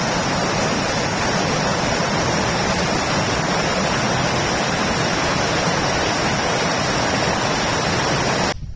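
Small, fast-flowing creek rushing and churning over rocks in a narrow channel: a loud, steady rush of water that stops suddenly near the end.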